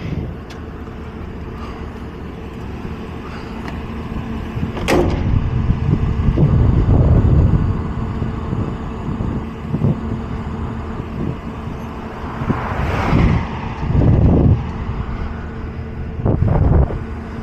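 Heavy road-paving machinery and trucks idling with a steady engine hum, swelling into louder rumbles now and then, with one sharp knock about five seconds in.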